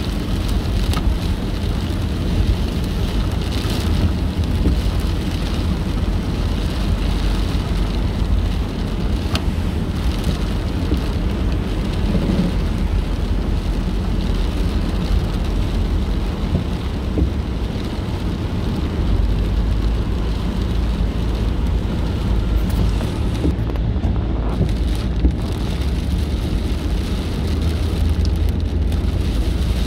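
Steady road noise inside a car driving on a wet highway in rain: a low rumble of tyres on wet pavement under the hiss of rain and spray, with a few faint ticks.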